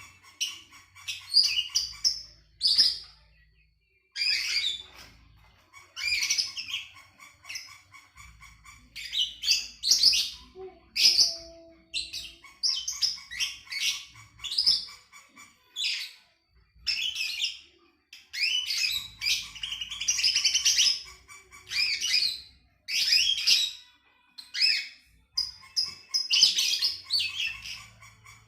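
A songbird singing a varied, chirping song in short bursts of rapid chirps and trills, each phrase about a second long with brief pauses between.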